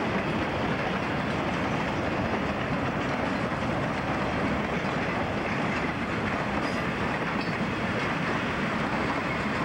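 CSX freight train rolling past on the rails, a steady rumble and clatter of wheels that neither builds nor fades.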